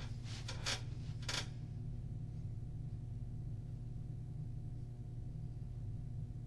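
Steady low electrical hum with a faint higher tone, the room tone of an interrogation-room recording. A few short clicks in the first second and a half, then only the hum.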